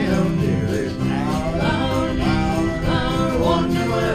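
Live country-gospel band playing between sung lines, with acoustic and electric guitars over bass.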